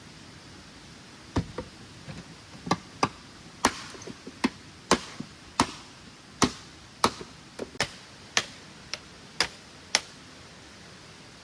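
A series of about fifteen sharp chopping strikes, roughly one every half second, starting a second or so in and stopping shortly before the end.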